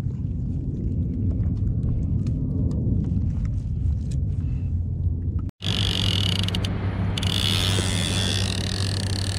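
Wind rumbling on an action camera's microphone at sea, with small clicks and crinkles from a plastic bag of bait fish being handled. A little over halfway through, the sound drops out for an instant and gives way to a brighter, even hiss of wind and water.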